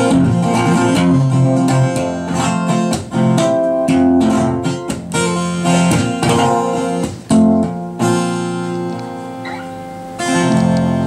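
Steel-string acoustic guitar played solo: plucked notes and chords with sharp attacks, easing to softer ringing notes about eight seconds in before a fuller chord rings out near the end.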